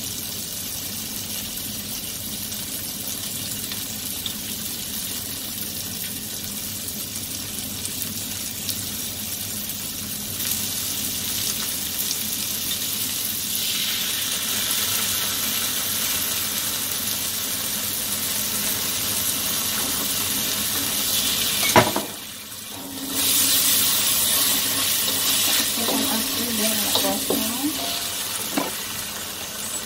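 Chillies, garlic and spring onion sizzling in margarine in a wok over a low flame: a steady hiss that grows a little brighter partway through, with one sharp click about two-thirds of the way in and a brief dip after it.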